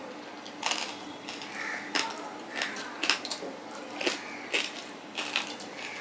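Close-miked eating: chewing and lip smacks with fingers squishing and mixing rice and fried hilsa fish on a steel plate, heard as a string of short, sharp clicks and squelches.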